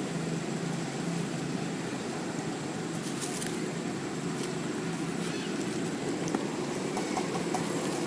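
A steady low mechanical hum, with a few faint clicks and rustles.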